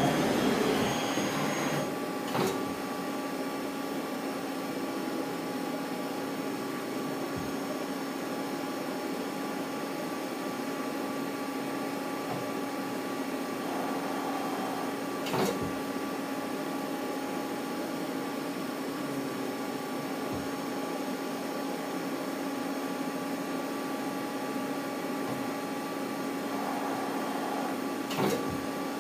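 Mazak CNC lathe running while its live milling spindle drives a tap in a floating tap holder into the face of a chucked part: a steady machine hum with a few constant tones. A louder rush fills the first two seconds, and a sharp click comes three times, about every thirteen seconds.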